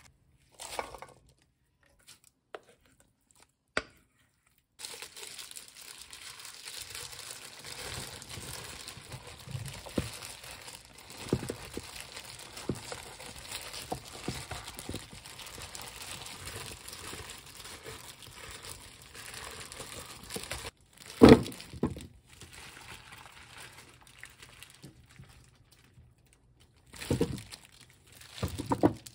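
Gloved hands tossing cut radish chunks with red chili seasoning paste in a stainless steel bowl: a steady wet mixing sound with small clicks of radish pieces, after a few seconds of quiet taps. One loud knock comes about two-thirds of the way in, and more handling sounds come near the end.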